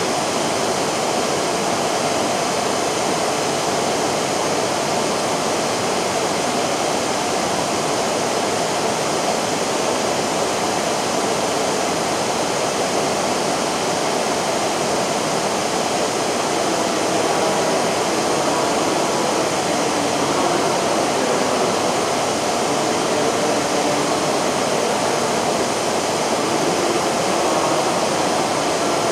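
Steady rushing hiss of an E5 series shinkansen standing at the platform with its onboard equipment running, a little louder around the middle.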